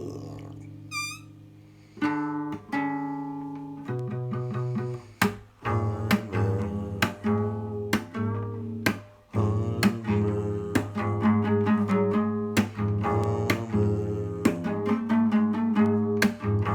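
Background music: plucked string notes over a steady low bass line, the notes growing quicker and busier from about five seconds in.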